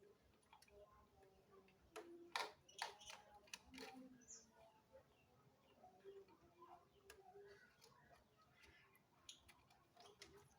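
Faint clicks and taps of a DDR3 RAM stick being handled and fitted into a motherboard memory slot, with a cluster of sharper clicks about two to four seconds in.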